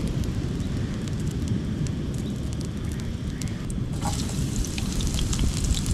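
Crackling of an outdoor cooking fire over a steady low rumble. About four seconds in, the crackling turns brighter and denser, with a hiss.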